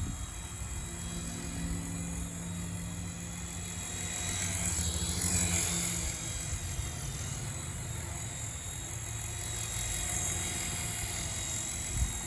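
Small DEERC DE51 RC helicopter's electric motor and rotor whining steadily in flight, the whine sweeping down and back up in pitch about halfway through as it moves.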